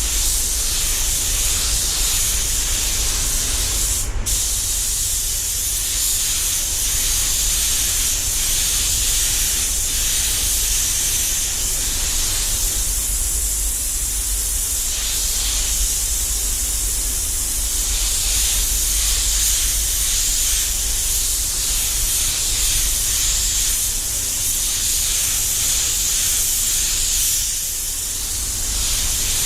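Devilbiss DV1 spray gun hissing steadily as it sprays metallic base coat, easing briefly near the end between passes.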